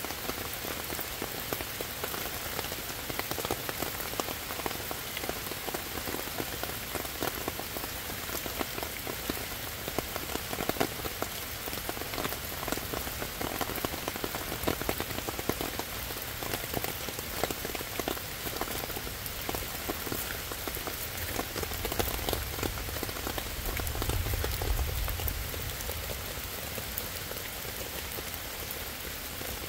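Steady rain falling, with a dense patter of drops striking the ground, leaves and stones. A low rumble swells and fades about three-quarters of the way through.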